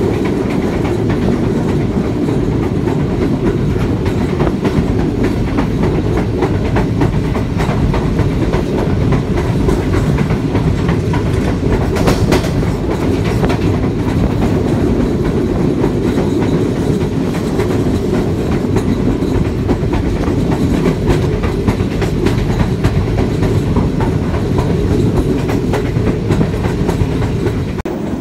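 Pakistan Railways Green Line Express passenger coach running on the track, heard from an open doorway: a steady loud rumble of wheels and carriage, with the clickety-clack and clicks of the wheels on the rails.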